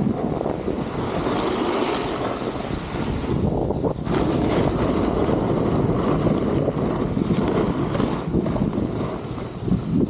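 Steady rushing noise of riding a snowboard downhill: board edges scraping over the snow, with wind buffeting the microphone. It dips for an instant about four seconds in, then comes back louder.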